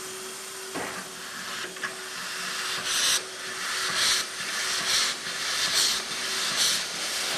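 ČSD class 498.1 'Albatros' three-cylinder express steam locomotive working slowly: a steady hiss of steam, then from about three seconds in a series of loud puffs, roughly one a second, as steam blows out at the cylinders.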